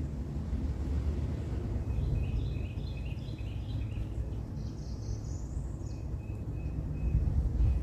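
Outdoor background: a steady low rumble, with a bird chirping several times in quick succession and then giving one higher call.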